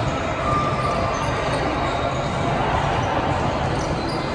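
Echoing sports-hall noise during indoor volleyball: scattered thumps of volleyballs being struck and bouncing on the court floors over a steady roar of activity in a large gym.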